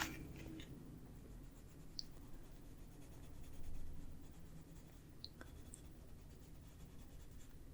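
Faint scratching of a Prismacolor colored pencil shading on paper, with a few light ticks.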